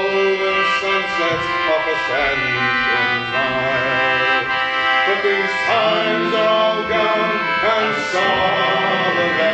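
A group of singers performing a folk song live, their voices moving over steady held chords from a squeezebox-type instrument.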